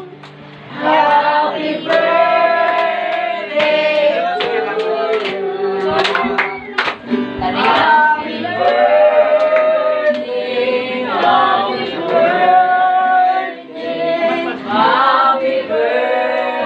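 Music with singing voices, a melody of held sung notes.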